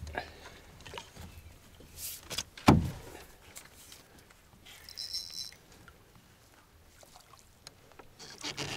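Handling knocks in a canoe while a bass is netted, with one sharp thump on the hull about three seconds in and a few lighter clicks around it. A brief high squeak sounds about five seconds in.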